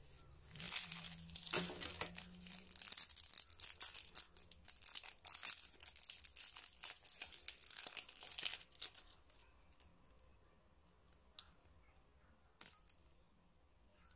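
Foil twist wrapper of a Galaxy Caramel miniature chocolate crinkling and rustling as it is unwrapped by hand for about eight seconds, then quieter with a few faint clicks.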